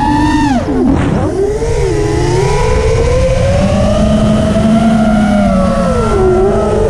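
FPV racing quadcopter's brushless motors and propellers whining, the pitch swooping up and down with the throttle: a sharp drop about half a second in, climbing again a second later, and another dip near the end. A constant low rush of noise runs under the whine.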